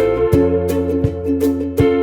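Background music: plucked guitar or ukulele-like strings over a bass line, with a steady beat.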